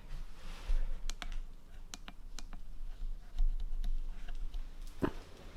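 Scattered sharp clicks and light ticks at an irregular pace, with a duller knock near the end, over a low handling rumble.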